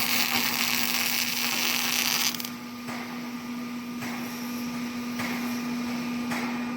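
CO2 gas-shielded spot-welding arc crackling for about two seconds, then cutting off sharply, over a steady electrical hum from the welding machine. A few faint short bursts follow.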